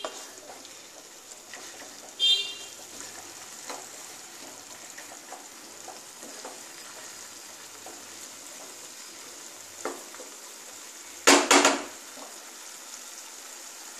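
Moong dal and vegetables sizzling in a non-stick kadai on a raised flame while a wooden spatula stirs them, scraping and knocking against the pan. There is a sharp scrape about two seconds in and a louder clatter of the spatula on the pan near the end.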